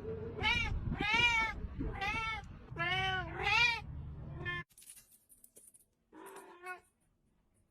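Domestic cat meowing over and over, about six loud, drawn-out meows in quick succession. The background then drops away abruptly and a quieter cat gives two shorter meows.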